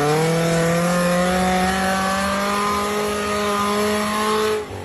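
Off-road vehicle's engine revving hard, its pitch rising quickly at first and then held high and steady, then cutting off abruptly near the end.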